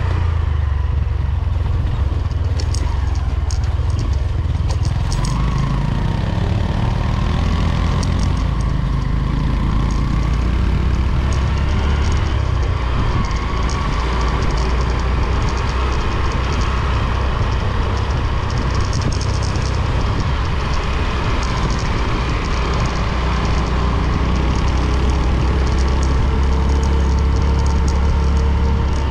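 A motor vehicle engine running steadily while travelling along a road, under a heavy low rumble, with faint engine tones that drift slightly in pitch.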